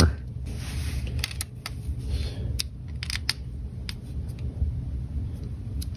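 Scattered small clicks and ticks of a hex screwdriver tightening a small screw into a 3D-printed plastic joint on an aluminium extrusion.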